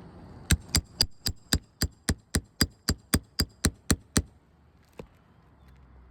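Roofing hammer tapping in a quick, even series of about fifteen light metallic strikes, about four a second, then a single softer tap a moment later.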